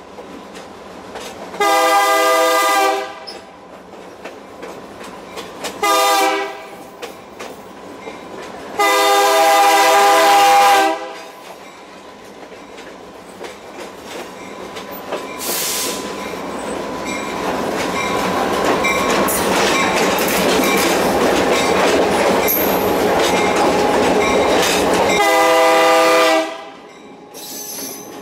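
EMD SD38-2 diesel locomotive's air horn blowing, heard from aboard the moving train: a blast about two seconds in, a shorter one, then a longer one, and one more near the end. Between the blasts the train's running noise and wheels on the rails build steadily louder.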